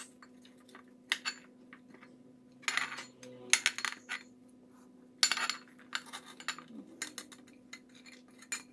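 Silicone spatula scraping sliced vegetables off a plate into a glass bowl: irregular scrapes and clinks of the plate rim against the bowl, in short clusters every second or two.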